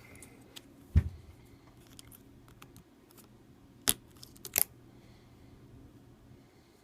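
Scattered sharp clicks and taps of a tool working inside an opened Samsung Galaxy S4 as its ribbon-cable connectors are popped loose, with a dull knock about a second in and two louder clicks a little under a second apart near the middle.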